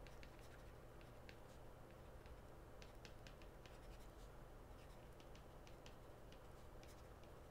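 Faint ticks and scratches of a stylus handwriting on a tablet screen, several small irregular taps a second, over a low steady hum.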